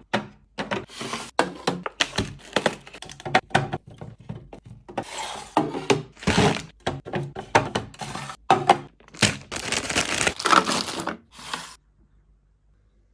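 Food containers and packaging being handled and set down while restocking a fridge: a quick, irregular run of clicks, knocks and rustling that stops abruptly shortly before the end.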